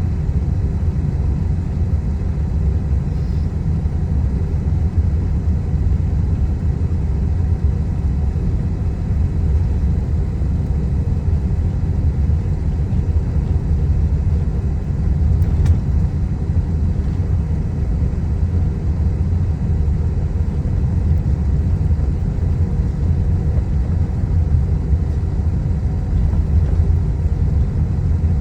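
Boeing 777 taxiing: a steady low rumble from its engines at taxi power, with faint steady tones above it and no build-up in level.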